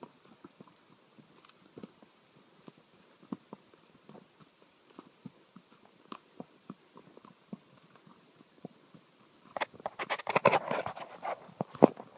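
Horses walking on a leaf-covered dirt trail: scattered soft hoof thuds and clicks, then a louder stretch of crunching, rustling leaves near the end.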